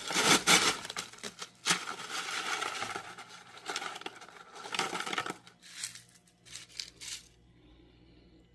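Sonic nugget ice being scooped and tipped, the small pellets rattling and clinking against each other and the scoop. The rattling is dense for about five seconds, then thins to a few scattered clinks and stops.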